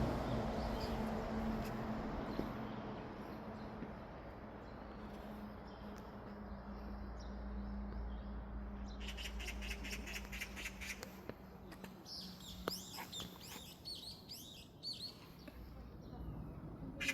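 Small birds chirping and calling, starting about halfway through with a quick run of chirps and going on as gliding high calls, over a low steady rush that fades away in the first half.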